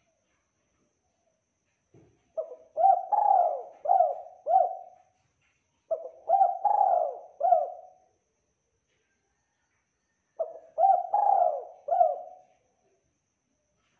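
Spotted dove cooing: three phrases of four or five low coos each, a few seconds apart.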